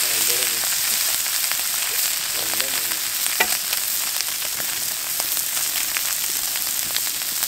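Masala-coated sardines sizzling in shallow oil on a cast-iron tawa, with a metal spatula clicking and scraping against the pan as it works under the fish; one sharper clack about three and a half seconds in.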